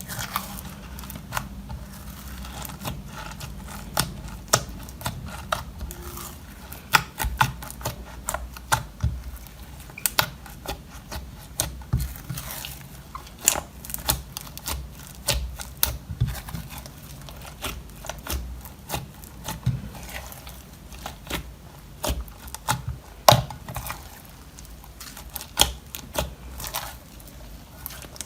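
Slime being squeezed and mixed by hand, giving a dense, irregular run of sharp sticky clicks and pops.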